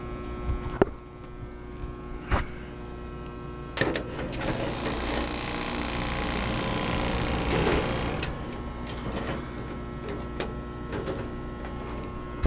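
Walk-in freezer condensing unit running with a steady hum while low on refrigerant. A few sharp knocks sound over it, and a louder hissing rush comes in about four seconds in and fades away some seconds later.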